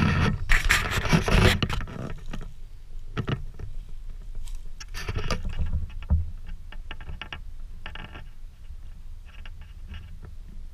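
Rustling and scraping of footsteps through undergrowth and leaf litter, with handling noise on the camera, loudest in the first two seconds, then quieter with scattered sharp clicks and cracks.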